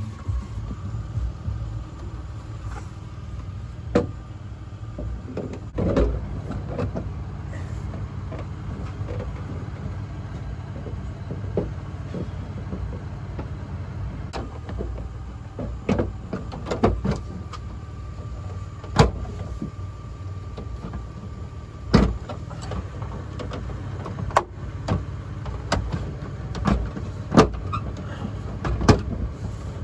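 A molded plastic liftgate trim panel is handled and pressed into place, giving scattered sharp clicks and knocks of plastic against the metal liftgate. The clicks come more often in the second half. A steady low hum runs underneath.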